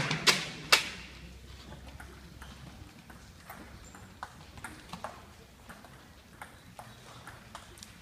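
Table tennis rally: the ball clicking off the bats and table about twice a second. Crowd noise dies away in the first second.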